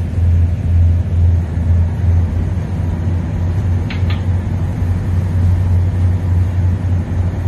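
A boat's diesel engine running with a steady low hum, with two short clicks about four seconds in.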